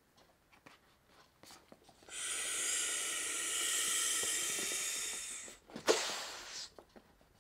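A person blowing one long, steady breath through the inflation valve of a LuminAID PackLite Max collapsible plastic lantern, an airy hiss of about three and a half seconds, to inflate it to full shape. Near the end comes a sharp click and a short rustle as the lantern is handled.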